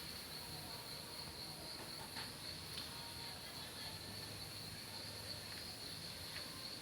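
Insects trilling steadily in one high, even tone, with a few faint clicks.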